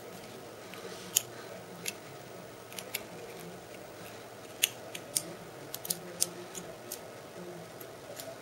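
A cat batting and grabbing at a small toy dangled on a strap: about a dozen sharp, irregular clicks and taps, bunched in the middle.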